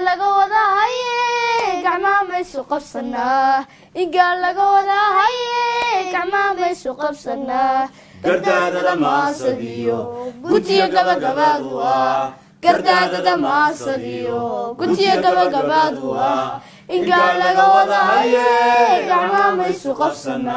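Unaccompanied singing in Somali: a woman's high voice sings phrases alone at first, then more voices, including lower men's voices, join in from about eight seconds in, chanting together.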